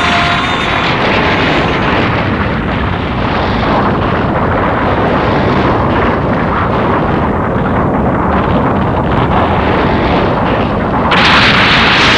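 Animated-film sound effect of an earthquake: a loud, continuous rumbling of shaking, crumbling rock, with a sudden louder blast about eleven seconds in.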